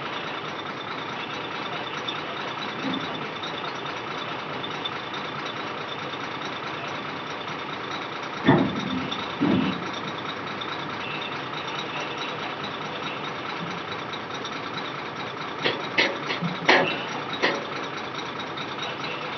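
Heavy vehicle engine running steadily with a reversing alarm beeping, broken by a couple of loud knocks in the middle and a quick run of clanks near the end.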